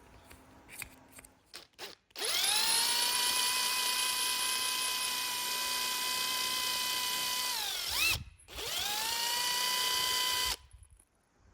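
Cordless power tool motor running at full speed in two runs: it spins up to a steady whine, winds down, then runs again briefly and cuts off suddenly.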